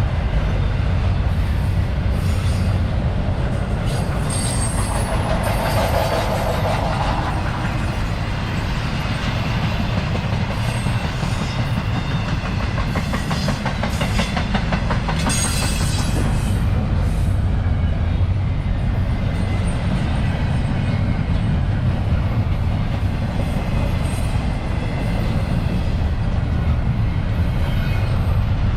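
CSX freight train cars rolling past: a steady, loud rumble of steel wheels on the rails, with clicking and clacking over rail joints and occasional brief wheel squeal.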